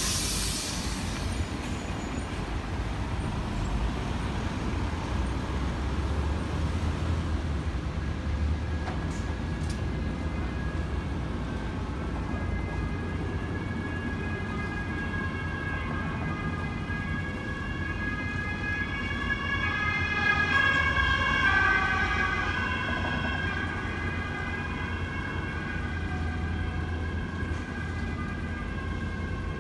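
An emergency vehicle's siren alternating between two pitches comes in about a third of the way through, is loudest about two-thirds through, then fades, over a steady rumble of city road traffic. A brief hiss sounds at the very start.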